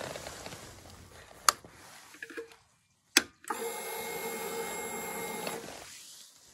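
Sharp clicks from the ignition key being turned on a Honda motorcycle, then the fuel pump priming with a steady whir for about two seconds.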